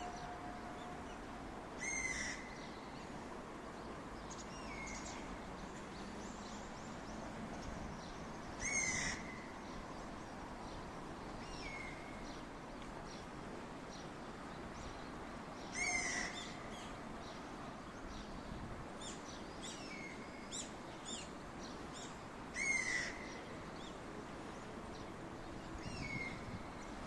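A small songbird singing the same short phrase about every seven seconds, a quick run of high notes ending on a lower note, with shorter high calls between the phrases. Under it, the steady rushing of the river.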